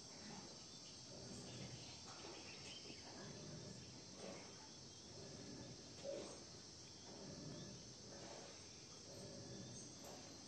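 Near silence: a faint steady high hiss over faint, uneven low background noise.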